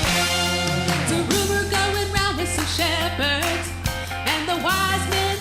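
Band music with a steady bass line and a singer's voice gliding up and down over it through the middle.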